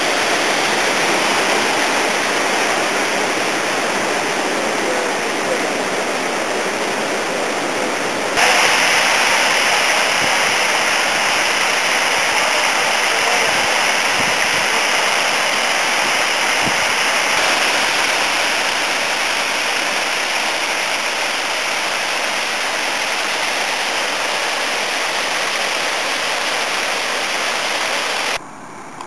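Water pouring over a masonry weir and splashing into the pool below, a steady rushing hiss. It grows louder and brighter about eight seconds in and falls away abruptly just before the end.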